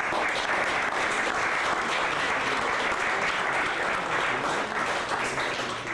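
Audience applauding with steady clapping that thins out near the end.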